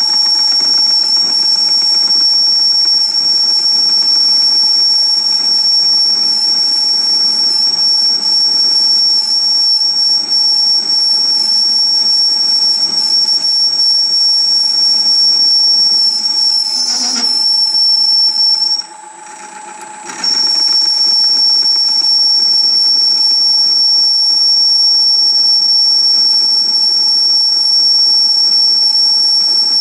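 Metal lathe taking a cut on a spinning steel part: the cutting tool sings a steady high-pitched whistle over the lathe's running hum. The whistle breaks off for a second or so about two-thirds of the way through, then comes back.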